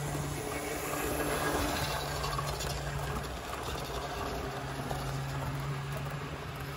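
HO-scale Athearn Blue Box F7 model locomotive running on the track, hauling a train of freight cars: a low motor-and-gear hum over the rattle of the wheels on the rails. The hum drops away and comes back a couple of times as the train moves along.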